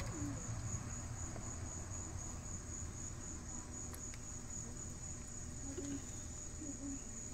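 Insects trilling: a steady, high, finely pulsing chirr with no break, over a low background rumble.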